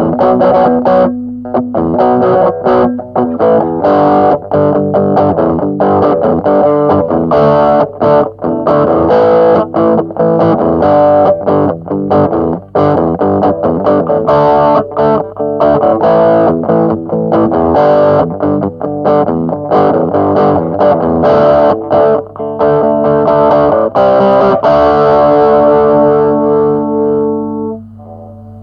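Jackson JS22 electric guitar played through a Joyo MA10E practice amp's overdrive channel on the bridge pickup with no effects: a distorted riff of fast picked notes. It ends in a held chord that rings for a few seconds and drops away near the end, leaving a low steady amp hum.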